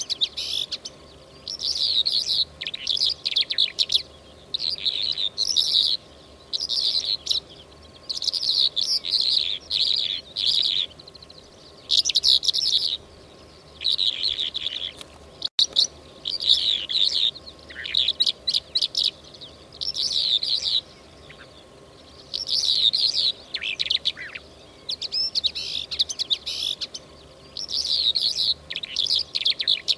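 Recorded lark song of the kind played as a hunting lure, the bird known to hunters as mutawwaq. It comes as short phrases of rapid, high chirps and trills, each about a second long, repeated with brief pauses, over a faint steady hum.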